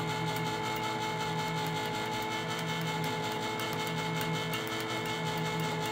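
Electric can opener running steadily, its motor humming as it turns a tall can and cuts around the lid, with faint regular ticks from the cutting wheel working along the rim.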